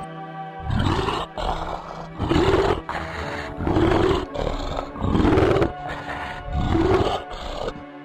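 Brown bear calls: five loud growls about a second and a half apart, over steady background music.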